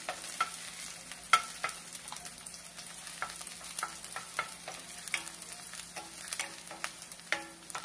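Chopped garlic sizzling in hot oil in a stainless steel skillet, with a steady high hiss, while a wooden spoon stirs it, knocking and scraping irregularly against the pan; the sharpest knock comes about a second in.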